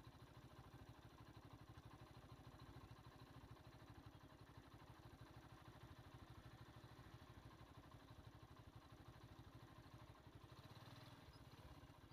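Small vehicle engine idling faintly with an even, rapid low pulsing. The pulsing stops about ten and a half seconds in, leaving a low steady hum.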